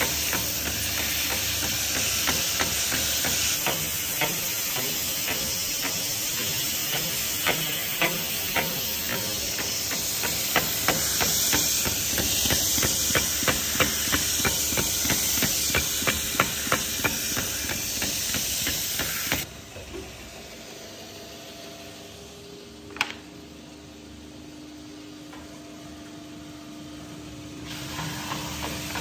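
Vintage stroke belt sander's abrasive belt running against a wooden chopping board under a spring-loaded pressure pad: a loud steady hiss with regular sharp ticks. About two-thirds of the way through it drops suddenly to a much quieter low hum, with a single knock a few seconds later, and grows louder again near the end.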